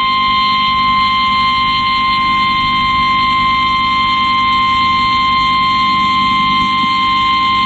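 Emergency Alert System attention signal for a tornado warning: the single steady 1050 Hz National Weather Service alert tone, held unbroken and loud.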